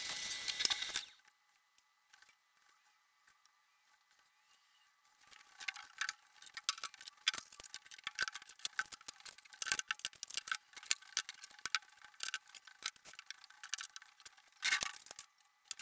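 Canister vacuum cleaner running with a thin whine, switched off about a second in. Then, after a short lull, a long run of irregular light clicks and knocks, with a brief louder rush of noise near the end.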